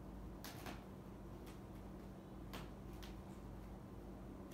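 Quiet room tone with a steady low hum and a few faint, scattered light clicks.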